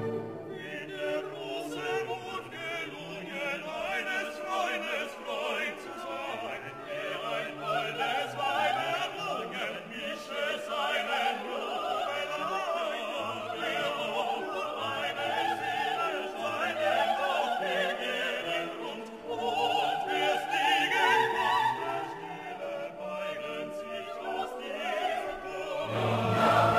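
Operatic singing with orchestral accompaniment, the voice held in long notes with a wide vibrato.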